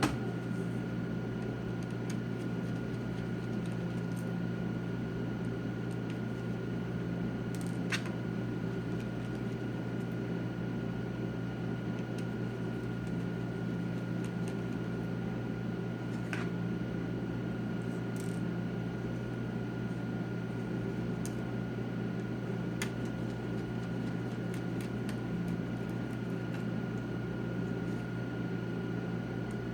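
Steady low hum with a faint high whine, and about five light clicks a few seconds apart from a screwdriver and tiny laptop screws being handled.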